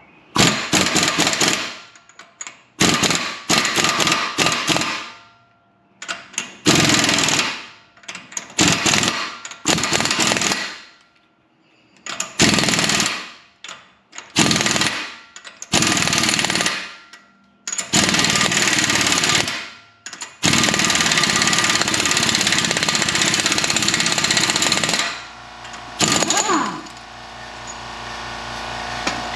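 Impact wrench on a 36 mm socket hammering at the front axle nut of a 2007 GMC Sierra 2500HD, working to break the nut loose. It goes in about nine short bursts, then one longer run of about four seconds near the end.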